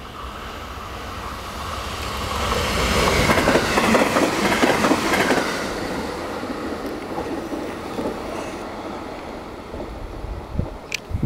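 A limited-express electric train passing at speed without stopping. Its running noise swells to a peak of clickety-clack wheel beats over the rail joints, then fades as it goes away. A few short low thumps and a click come near the end.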